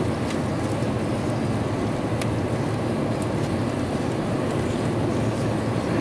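Steady cabin noise inside an Airbus A350 airliner on its landing approach: engine and airflow noise, mostly low in pitch, with a few faint clicks.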